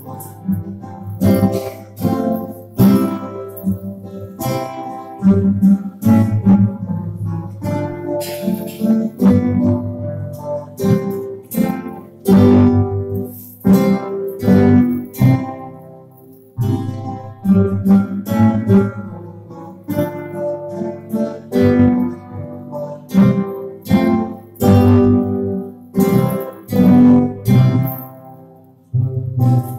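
A student ensemble of acoustic guitars strumming and plucking chords in a steady rhythm, playing a Christmas carol.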